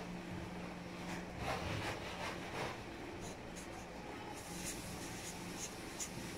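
Marker pen writing on a paper sticky note: faint, irregular scratchy strokes, sharper and more frequent in the second half.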